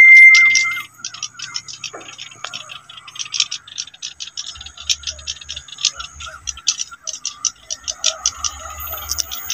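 A loud, steady, high whistle-like tone for the first second, cutting off abruptly. Then dense, rapid, high-pitched clicking chirps of insects in the grass, with faint warbling calls and a low rumble coming and going in the second half.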